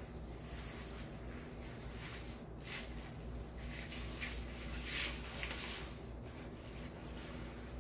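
Rustling and crinkling of deco mesh and wired ribbon being handled and tucked into place, with the loudest rustles about two and a half and five seconds in, over a low steady hum.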